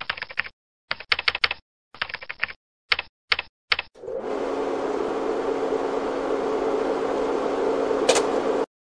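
Keyboard-typing sound effect: quick clusters of key clicks in time with letters typing onto the screen, then from about four seconds in a steady rushing noise with a low hum that builds slightly, with a short swish near the end before it cuts off suddenly.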